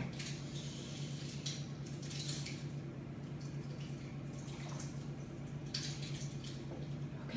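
Water running and splashing at a kitchen sink, coming and going in short spells, over a steady low hum.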